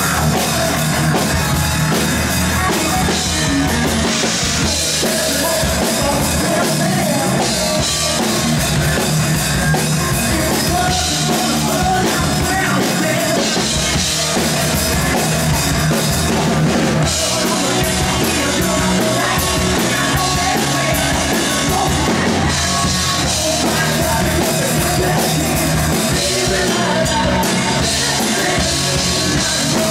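A live 1980s-style glam metal band playing loud, led by a pounding drum kit, with a male singer at the microphone.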